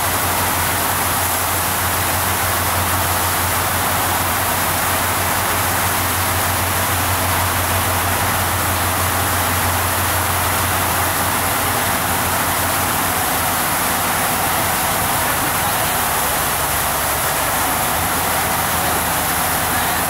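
Steady engine drone and rushing water and air noise of a river boat under way, unbroken throughout.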